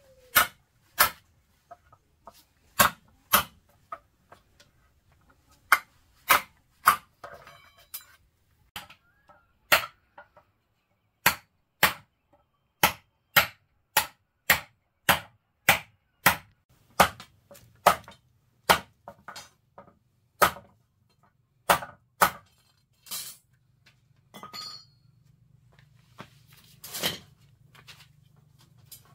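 Sharp blows of a hand tool striking over and over, about one or two a second with short pauses, thinning out after about twenty-three seconds.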